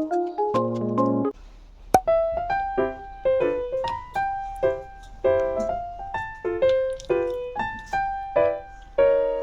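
Background music: a light keyboard tune of separate notes that each ring and fade, in a repeating phrase. It follows a short passage of fuller chords that breaks off about a second in, and there is a single sharp click near two seconds in.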